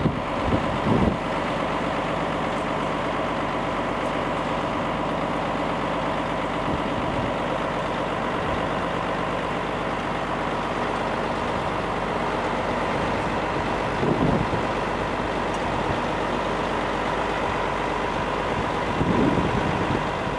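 Diesel engine of a Volvo crane truck running steadily while it powers the truck-mounted crane's hydraulics lifting a concrete slab, with a steady high whine over the engine and a few brief swells in loudness.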